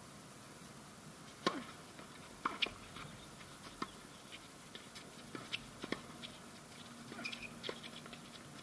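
Tennis balls being struck by racquets and bouncing on a hard court during a doubles rally: a string of short sharp pops, the loudest about a second and a half in.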